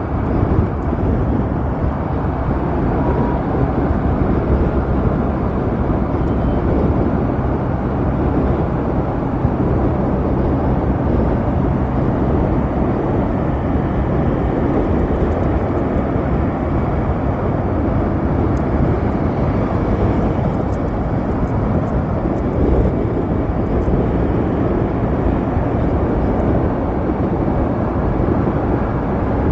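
Steady wind rush and road noise while riding an Ather 450X electric scooter at speed.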